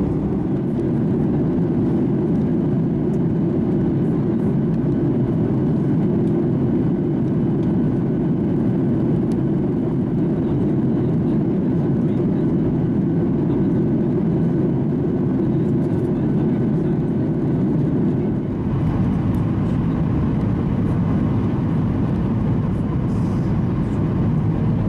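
Steady rushing jet cabin noise of a Boeing 737-800 in flight, airflow and its CFM56 engines heard from inside the cabin. The noise shifts abruptly and becomes slightly brighter about three-quarters of the way through.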